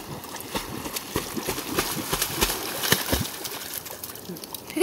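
A husky-type dog swimming hard in a river, its paws splashing and churning the water in quick, irregular strokes.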